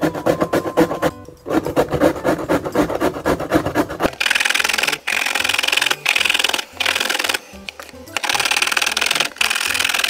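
Background music for about the first four seconds, then a carrot being grated over a grater into a plastic box. The grating is a fast rasping that comes in runs of a second or two with short breaks between them.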